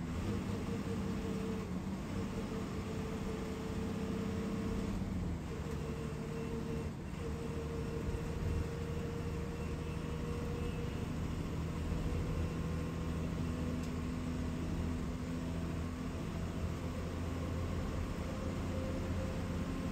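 Diesel bus engine and road noise heard inside the cabin of a fast-moving KSRTC Minnal bus: a steady drone with a low engine note that shifts slightly now and then.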